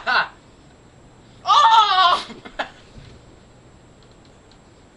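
A child's short, high-pitched laugh about a second and a half in, lasting under a second.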